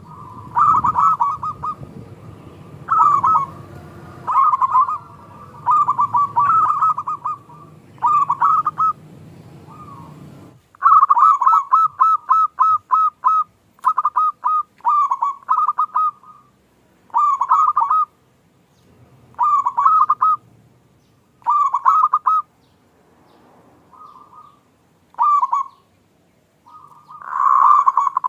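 Zebra doves (perkutut) cooing: short, rolling coo phrases repeated every one to two seconds, with a quicker run of notes about eleven seconds in. A low background rumble under the first ten seconds stops abruptly.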